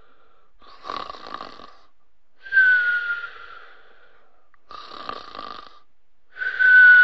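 Cartoon-style snoring sound effect: a rattling snore and then a whistling breath whose pitch slides slightly down, repeated twice.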